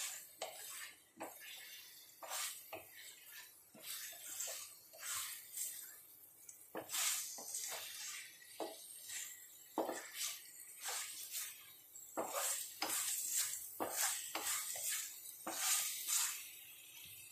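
A spatula scraping and knocking against a frying pan while stirring thick masala and boiled eggs, in short, irregular strokes. The masala is being cooked down until thick and dry.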